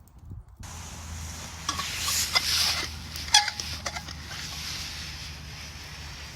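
A spoon stirring and scraping in a cooking pot, with clinks of metal, over a steady hiss of food cooking. It starts abruptly about half a second in.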